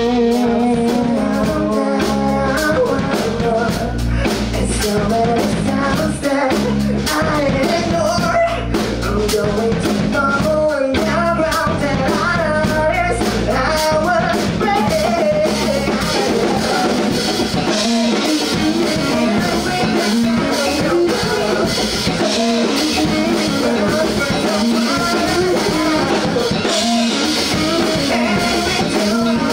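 Rock band playing live: singing over electric guitar, bass and drum kit, loud and continuous.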